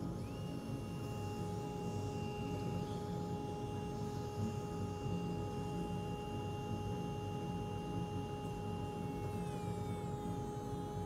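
Handheld rotary carving tool spinning up to a steady high whine, then cutting into a wooden fish decoy to start the lead-weight hole; its pitch sags and wavers near the end as the bit bites into the wood.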